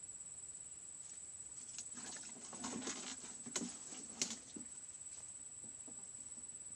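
A steady high-pitched whine runs throughout, with a stretch of rustling and handling noise in the middle that includes two sharp clicks.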